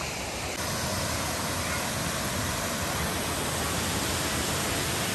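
Steady rushing hiss of Panther Creek Falls, water cascading over rock ledges into a pool. It comes in abruptly under a second in, replacing a quieter outdoor hiss.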